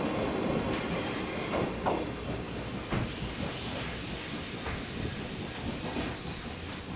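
Rail coaches rolling past and receding: a rolling rumble that fades steadily, with a few sharp clacks from the wheels over the rail joints.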